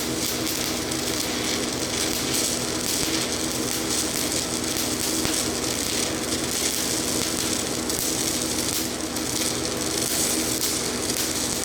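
Stick-welding arc crackling and sizzling steadily as cracks in a cast-iron housing are filled with Certanium 889 cast-iron rods, with a steady low hum underneath.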